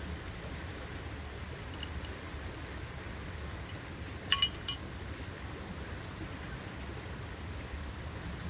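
Steady outdoor noise of wind and flowing river water, with a low rumble of wind on the microphone. About four seconds in comes a brief cluster of sharp clicks with a slight ring, the loudest sound, plus a couple of fainter clicks earlier.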